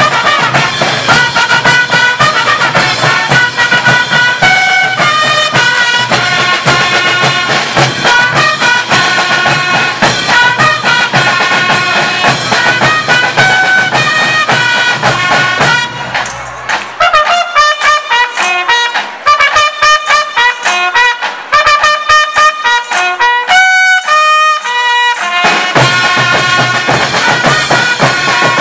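School rhythm band of drums and trumpets playing loudly. About halfway through, the drums drop out and the melody instruments play alone for several seconds, then the full band with drums comes back in near the end.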